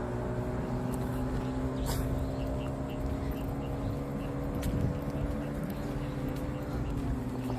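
A vehicle engine running close by, a steady hum with slowly drifting tones. Faint short high chirps repeat about three times a second through the middle.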